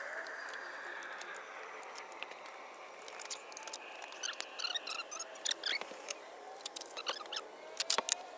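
Irregular light clicks and clinks of hand tools being handled, coming thicker in the second half. A faint siren wails in the distance, rising near the end.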